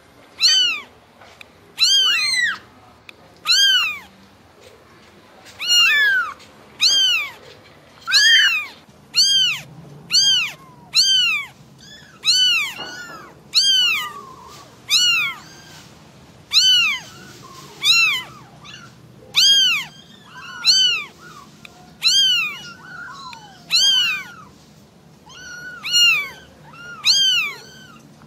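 Young kittens mewing, short high-pitched calls that rise and fall, repeated about once a second: calls of kittens calling for their mother.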